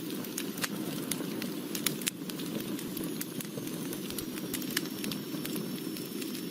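Wood fire burning: a steady low rush of flames with frequent irregular crackles and pops. A faint high whistle comes in about halfway.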